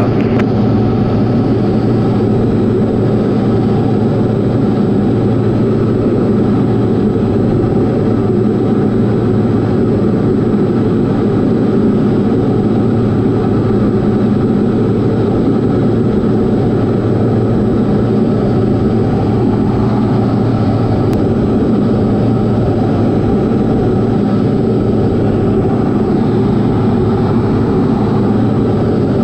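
Diamond DA40 single-engine piston aircraft's engine and propeller running steadily at cruise power, heard inside the cabin as a constant drone.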